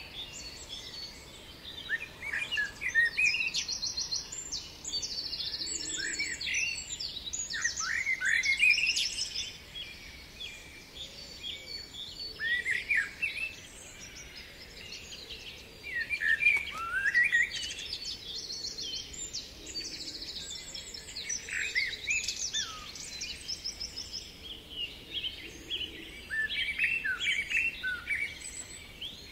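Songbirds chirping and singing, several calls overlapping: quick downward-sweeping chirps and fast high trills, in bursts.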